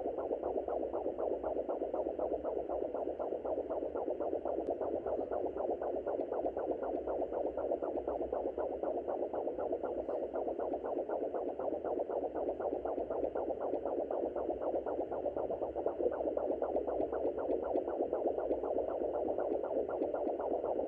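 Digital fetal doppler picking up the baby's heartbeat: a fast, very regular pulsing whoosh that stays steady throughout.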